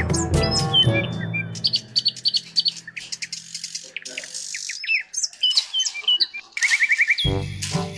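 Birds chirping, with short whistled notes and a quick trill, as the background music fades out; the music starts again loudly near the end.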